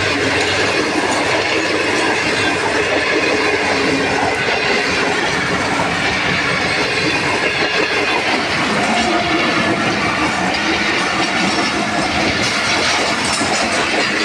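Passenger coaches of a long train passing at close range. Their steel wheels clatter over the rail joints in a loud, steady rolling noise.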